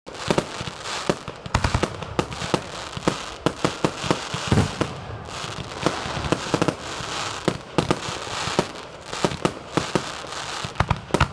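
Aerial fireworks display: a rapid, irregular run of sharp bangs from bursting shells, several a second and often overlapping, over a constant noisy background.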